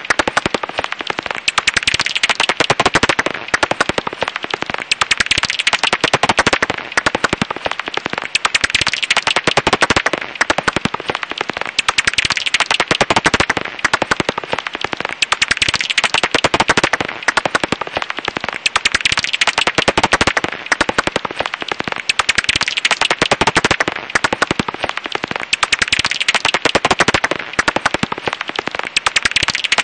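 Japanese house bat (Japanese pipistrelle) echolocation calls, brought down into the hearing range: a loud, dense, rapid crackle of clicks in runs of about three seconds with brief breaks between.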